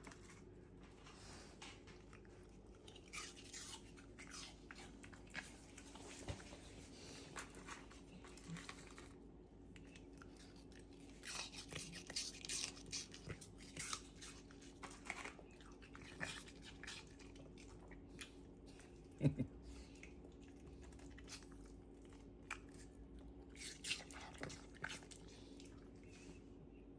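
An American Eskimo–Jindo mix dog crunching and chewing apple, irregular clusters of crisp crunches with pauses between. One short louder sound about nineteen seconds in, over a faint steady hum.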